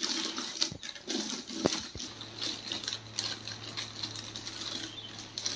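Clear plastic wrapping crinkling and rustling as it is pulled off an inverter unit, with scattered clicks. A low steady hum starts about two seconds in.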